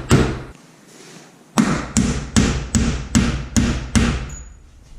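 Hammer blows driving a half-inch red oak dowel into a hole in a wooden workbench. One strike comes at the start, then after a pause of about a second there is a run of seven quick, even strikes, about two and a half a second, that stops once the dowel is seated.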